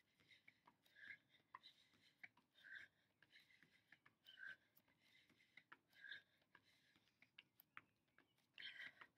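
Near silence with faint scuffing and rubbing of a person exercising on a mat, coming in puffs about once every second and a half with small clicks between.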